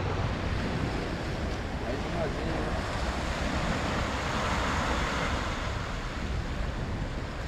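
Sea surf washing against a rocky shore, a steady rush that swells a little about halfway through, with wind rumbling on the microphone.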